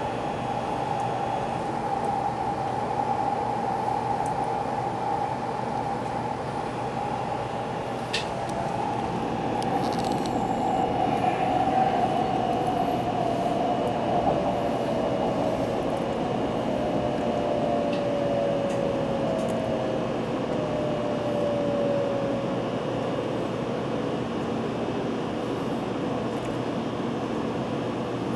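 Kyushu Shinkansen 800 series train running at speed, heard from inside the passenger car as a steady rumble and rush. Midway a whine slowly falls in pitch over about fifteen seconds.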